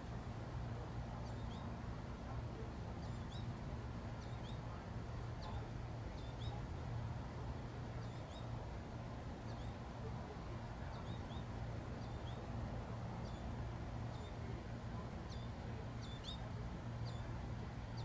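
American goldfinches giving short, high chirps every second or two, over a steady low hum.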